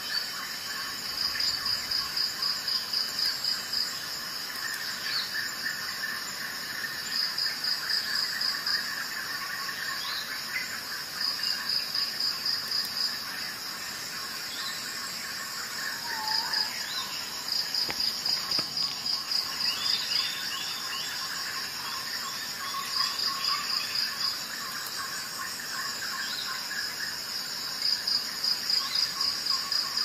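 Insect chirping, cricket-like: high, rapid trains of evenly spaced pulses in bouts of about two seconds, repeating every four to five seconds, with a few faint bird-like chirps in between.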